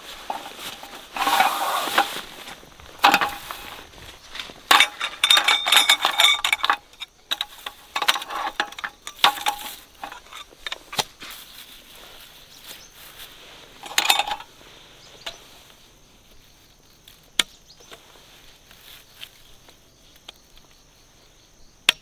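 Camp cooking gear being handled: irregular clattering, scraping and clinking of metal utensils and dishes, busiest in the first ten seconds, with another burst about fourteen seconds in and then a few sharp isolated clicks.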